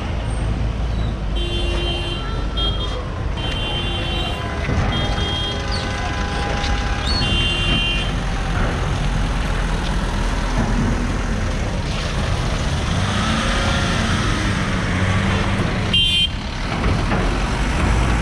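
Steady low rumble of vehicle engines, with a horn giving a string of short toots from about a second in until about eight seconds, and one more short toot near the end.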